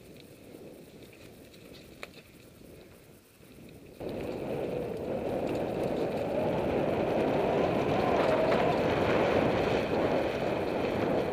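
Mountain bike being ridden along a dirt forest singletrack. A faint rolling sound jumps abruptly to a loud, steady rushing noise about four seconds in.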